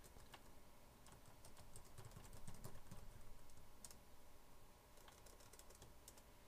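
Faint typing on a computer keyboard: an uneven run of keystrokes as a short line of text is typed.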